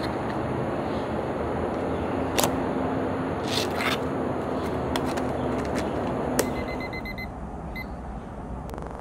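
Clicks and knocks of hard plastic as a bowl of food is set into a self-heating hotpot's plastic base and its lid is handled, over a steady background hiss. Near the end a digital kitchen timer gives a quick run of short, high beeps, then one more, as it is set to eight minutes.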